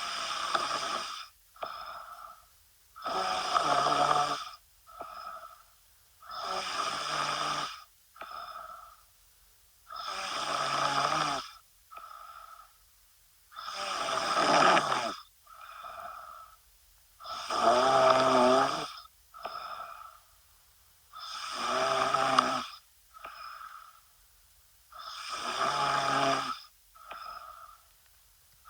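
A sleeping woman snoring steadily: about eight long, loud rattling snores roughly every three and a half seconds, each followed by a shorter, quieter breath.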